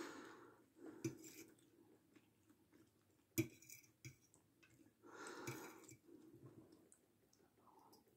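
Quiet eating sounds: chewing with heavy breaths, and one sharp clink of a metal fork on the plate about three and a half seconds in, with a few fainter ticks.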